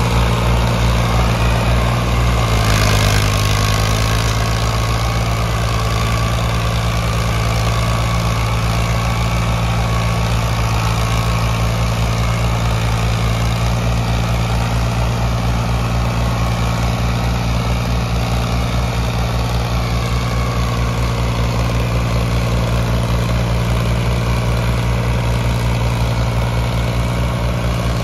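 Ford three-cylinder diesel tractor engines running steadily under heavy load, hitched in tandem to drag a stuck, loaded trolley. A short rush of noise comes about three seconds in.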